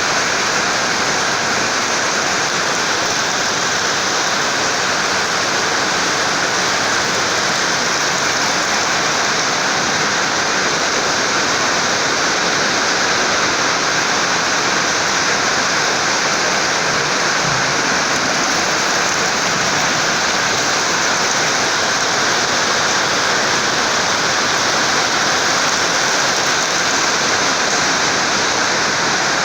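Rainwater pouring and splashing heavily in a steady, unbroken rush.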